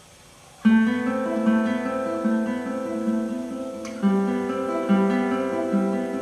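Solo classical guitar played fingerstyle: it starts with a loud chord about half a second in, then plucked notes ring over one another above a moving bass line, with a strong new bass note about four seconds in.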